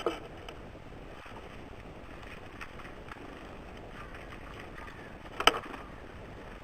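Birds at a wooden feeder: a few light taps and one sharp knock about five and a half seconds in, over a steady hiss.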